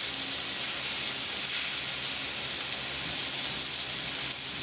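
Mahi-mahi fillets frying in olive oil in a cast-iron skillet on medium-high heat: a steady sizzle as the second side sears.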